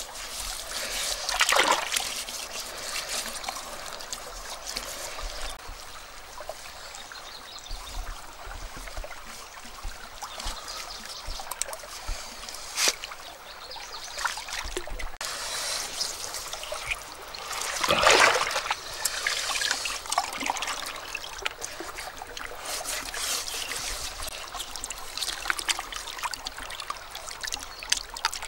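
Hands scooping and squelching wet mud and shallow river water, with steady trickling and splashing; louder splashes come about a second and a half in and again around eighteen seconds, and a single sharp click near the middle.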